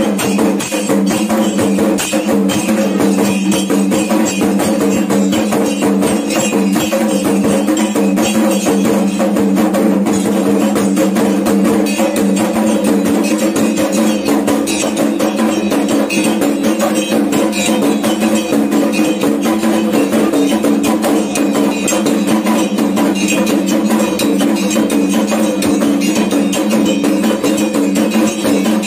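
Kendang drums beaten in a fast, steady rhythm for a Dayak belian healing ritual, with a steady ringing tone under the beats.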